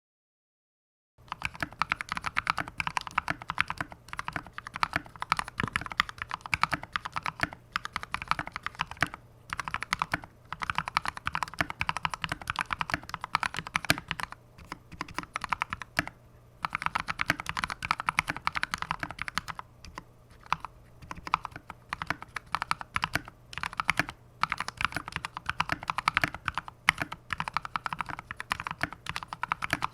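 Typing on a custom GK64X hot-swap mechanical keyboard with lubed NovelKeys Kailh Cream linear switches and thick PBT keycaps: quick runs of keystrokes broken by short pauses, starting after about a second of silence. The stabilized keys, space bar included, have lubed, clipped and band-aid-modded stabilizers.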